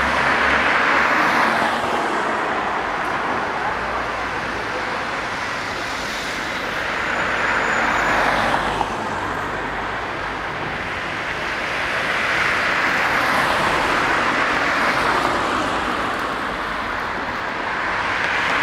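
Street traffic: cars passing one after another, the tyre and engine noise swelling and fading as each goes by. The passes come near the start, about eight seconds in, around thirteen seconds in, and again at the end.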